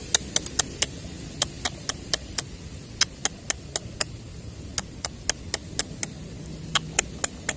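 Rapid sharp clicks, about three or four a second in irregular runs, from fingers tapping the water at an eel hole to lure a rice-paddy eel.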